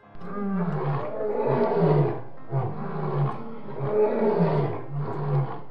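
Lion roar sound effect: one long roar followed by shorter roars about once a second.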